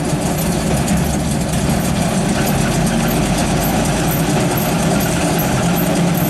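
Dump truck's diesel engine running steadily at low revs, with an even, unchanging rumble.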